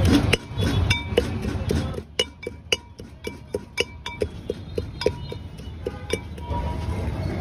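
Stone pestle pounding a bitter-gourd and chilli mash in a stone mortar: quick ringing knocks, about three or four a second.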